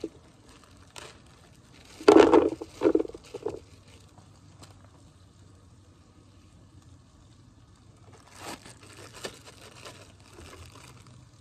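Plastic bag of baby carrots crinkling as it is handled and emptied, with a louder rustle about two seconds in and lighter crinkles near the end.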